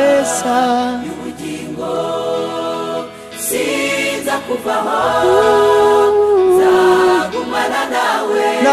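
Gospel choir singing a song in harmony, one voice standing out above the rest, over a low accompaniment that changes note every couple of seconds.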